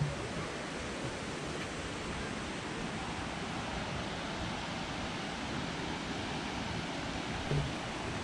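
Steady rushing of Lynn Creek's water, an even unbroken hiss, with a single soft thump about seven and a half seconds in.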